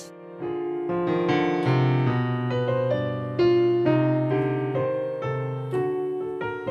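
Background piano music: single notes played one after another over held low notes.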